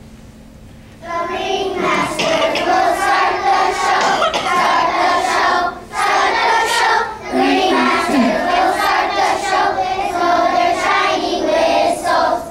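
A class of young children singing together, starting about a second in, with short breaks between phrases.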